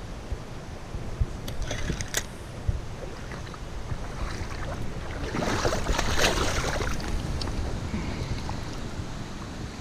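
Wind buffeting the microphone beside a river, with a few sharp clicks in the first three seconds and a burst of water splashing from about five and a half to seven seconds in.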